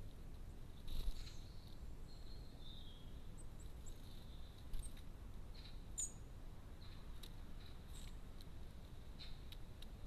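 Faint high chirps and thin calls of small garden birds, with a few light clicks, over a low steady rumble. A dull thump about a second in is the loudest sound.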